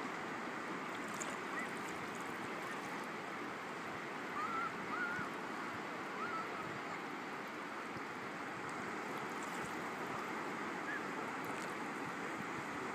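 Steady rush of shallow water moving over a sandy bottom, with three short pitched chirps about four to six seconds in.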